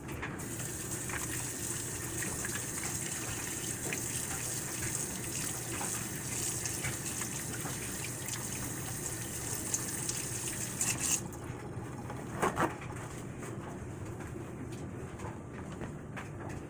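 Kitchen tap running as hands are washed under it, turned off about eleven seconds in. A couple of short knocks follow.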